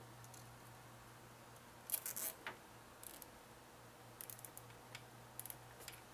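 Small sharp clicks and scrapes of hands tying back cables inside a PC case: a quick run of clicks about two seconds in, the loudest moment, then a few softer groups of clicks. A low steady hum runs underneath.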